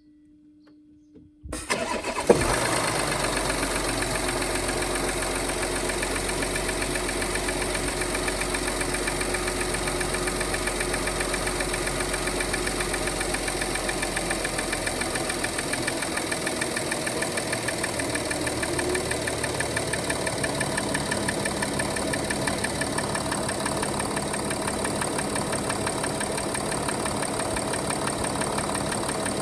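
Audi Q7 3.0 TDI V6 diesel engine cranking and starting about a second and a half in, then idling steadily with a fast, even, rhythmic knock.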